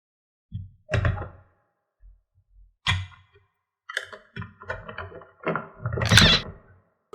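A series of irregular thuds and knocks, with a quick run of knocks about four to five seconds in and the loudest thud about six seconds in.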